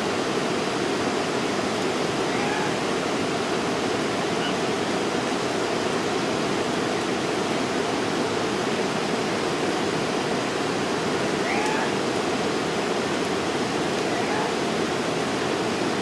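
Steady rush of a stream or falling water, an even noise that does not change.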